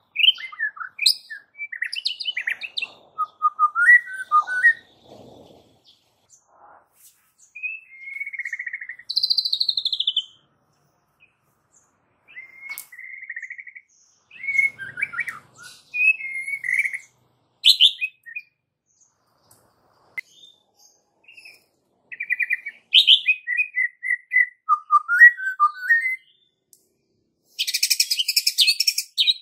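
White-rumped shama singing: bursts of varied whistled and warbling phrases with short pauses between them, ending in a fast, harsh rattling chatter near the end.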